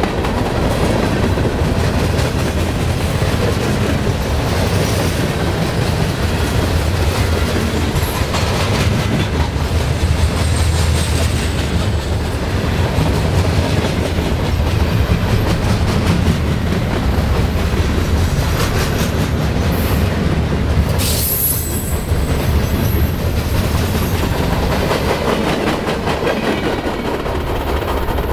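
Freight train of coil cars and gondolas rolling past at close range: a steady rumble with wheels clacking over the rail joints. A brief high wheel squeal cuts through about three quarters of the way in.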